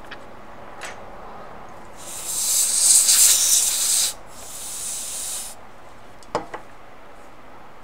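Pressurized spray hissing in two bursts, a loud one of about two seconds and then a quieter one of about a second and a half, followed by two light clicks.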